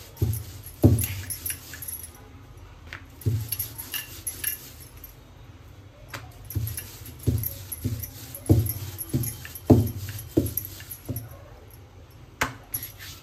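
Rolling pin and chapati dough knocking on a granite counter in irregular dull thumps as the dough is rolled out and turned, with metal bangles jingling on the wrists.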